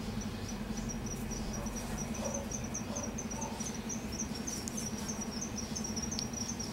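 Cricket chirping steadily, a few short high chirps a second, over a low steady hum.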